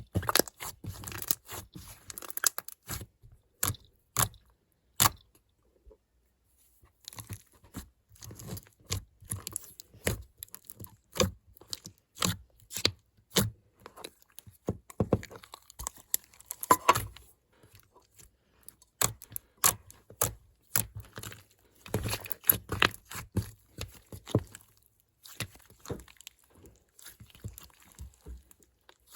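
Slime being squished and stretched by hand, giving crisp crackling and crunching clicks in irregular clusters, with a couple of brief pauses.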